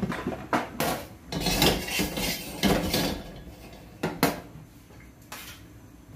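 Wok clanking and scraping against the gas burner's metal grate as it is handled to spread a little oil. It gives a run of irregular knocks in the first three seconds, one sharp clank about four seconds in and a softer one near the end.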